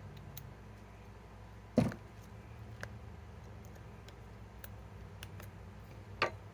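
Two sharp knocks, about two seconds and six seconds in, with a few faint ticks in between, over a steady low hum. They sound like tools or bits being handled and set down.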